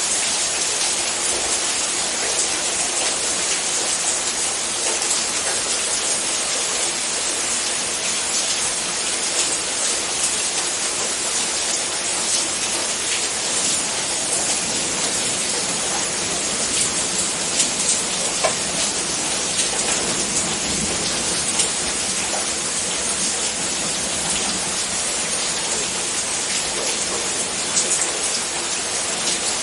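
Steady rain falling: a dense, even hiss with scattered sharper hits of single drops.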